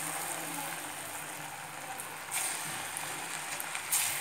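Moong dal pakodas deep-frying in hot oil in a kadai: a steady sizzle, swelling louder about two seconds in and again near the end as a fresh lump of batter is dropped into the oil.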